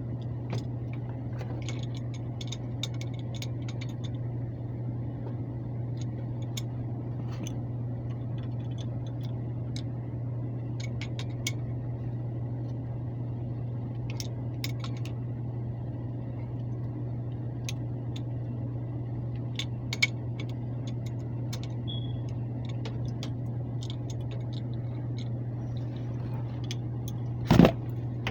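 Steady low hum of a Lennox air handler's blower running, with scattered light clicks and taps and one louder knock near the end.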